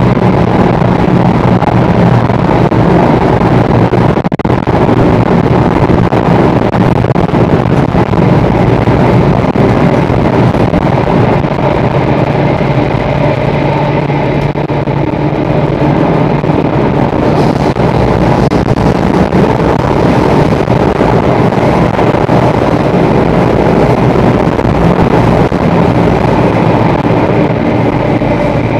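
Singapore Circle Line MRT train running at speed through a tunnel, heard from inside the carriage: a loud, steady rumble of wheels on rail with a steady hum running through it. A single knock comes about four seconds in.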